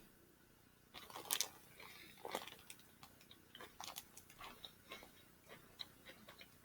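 A person chewing and eating a mouthful of tuna pasta salad: irregular wet mouth smacks and small clicks, loudest a little over a second in and again about two seconds in.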